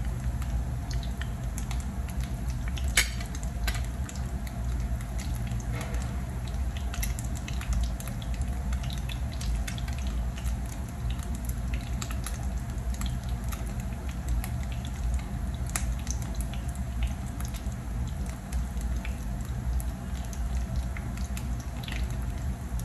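Ground-beef and egg patties frying in shallow oil: steady sizzling with many scattered small pops and crackles of spattering oil, and one sharper click about three seconds in.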